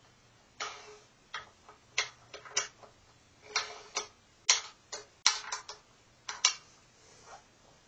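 Cordless drill/driver fitted with a socket, worked in short, irregular trigger bursts against a timing-cover bolt on a bare V6 engine block: about a dozen sharp clicks and brief whirs.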